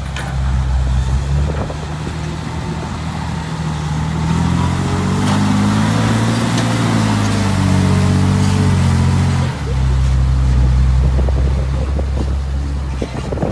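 Diesel dump truck engine hauling a heaped load of soil across soft field ground. The engine note climbs from about four seconds in, eases back, then drops abruptly to a low, steady pitch just before ten seconds.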